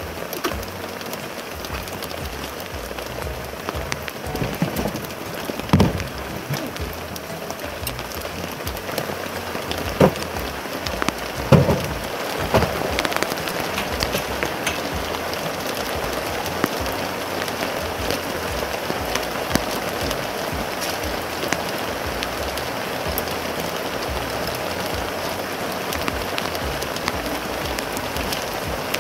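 Heavy rain falling steadily, with a few sharp knocks of camping gear being handled around six, ten and twelve seconds in.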